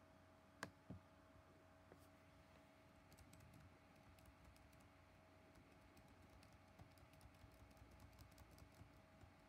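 Faint clicking of a laptop keyboard: two sharper clicks within the first second, then a quick run of key taps from about a third of the way in, the backspace key deleting text character by character.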